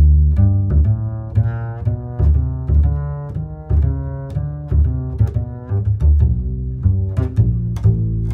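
Background music: bass and cello string notes, plucked and bowed, about two notes a second.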